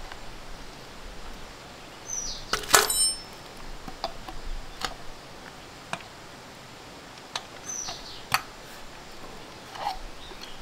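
Metal tools and parts clinking and knocking during hand work, with one loud ringing metallic clank a little under three seconds in and scattered lighter taps after it.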